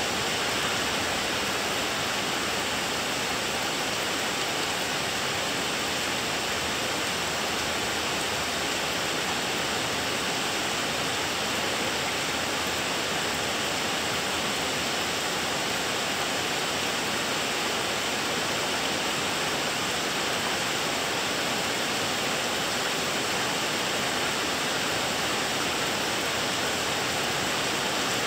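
Steady rain of a thunderstorm downpour, an even hiss that holds at the same level throughout, with no thunderclap.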